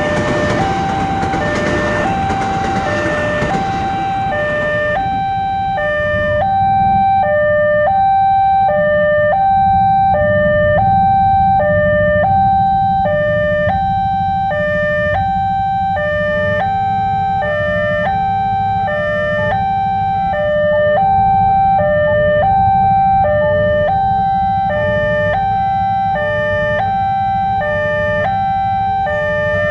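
Electronic two-tone railway-crossing warning alarm played loud, stepping steadily back and forth between a higher and a lower pitch, with a third, lower tone joining about halfway through. A steady low rumble runs underneath, and a broad hiss fades out in the first few seconds.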